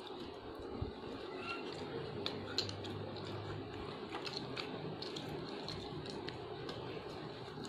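Biscuits being handled and eaten: scattered small, crisp clicks and crunches at irregular times over a steady low background hum.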